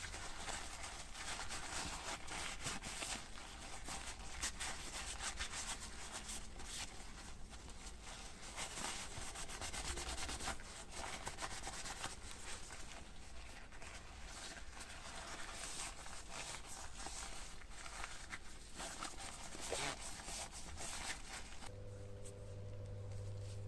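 Paper towel rubbing and crinkling against a walking stick's black rubber tip as it is wiped, an uneven scratchy rustle. Near the end the rubbing stops and a steady low hum is left.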